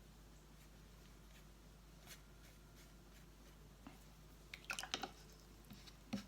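Quiet room with a faint steady hum, then a short cluster of light clicks and taps a little past halfway and one more near the end: painting tools being handled at the work table.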